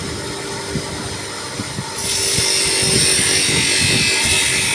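DeWalt power tool running with a steady motor hum; about two seconds in, a loud, harsh high-pitched hiss sets in as it begins cutting or drilling.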